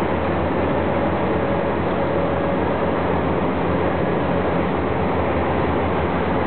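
Diesel engines of tracked demolition excavators running steadily, a continuous drone with no distinct impacts.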